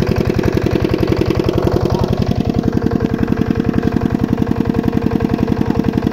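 A small engine running steadily, a rapid even thudding of about ten beats a second, its tone shifting slightly a couple of seconds in.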